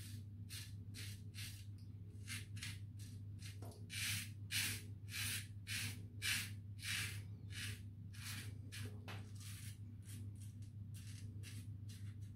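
Razorine Flatboy safety razor with a Kai blade scraping through lathered stubble in short strokes, about two to three a second, over a steady low hum.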